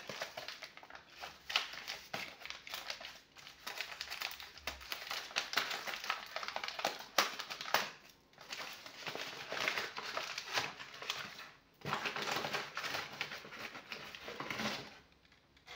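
Thin plastic bag crinkling and rustling as it is handled and pulled open to unwrap a package, with brief lulls about eight and twelve seconds in.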